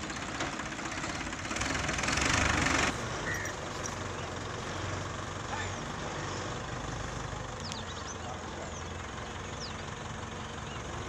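A heavy vehicle's engine idling with a low, steady hum. A louder rushing noise builds about a second and a half in and cuts off sharply near three seconds.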